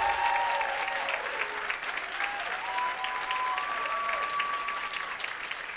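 Audience applauding, with a few held tones sounding over the clapping, easing off slightly toward the end.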